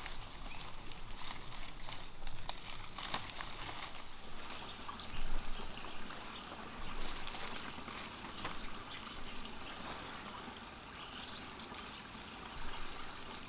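Palm fronds crackling and rustling as they are handled for the first few seconds, over a steady trickle of running water that carries on alone afterwards.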